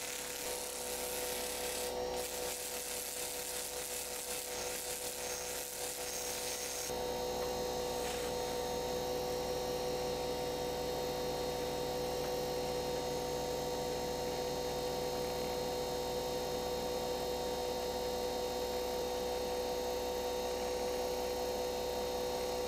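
Rotary tool with a felt buffing wheel polishing a padauk wood figurine: a steady motor whine with the rubbing hiss of the wheel on the wood. About seven seconds in the rubbing thins and the motor keeps running with less contact.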